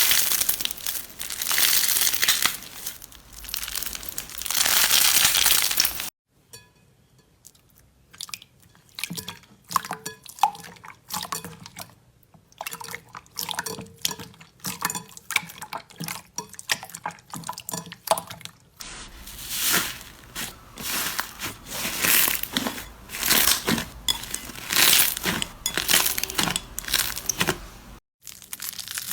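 Slime being squeezed and pressed by hand, with crunching and crackling. It is loud for the first few seconds, turns to quieter small clicks and pops after an abrupt change, and turns loud again in the second half.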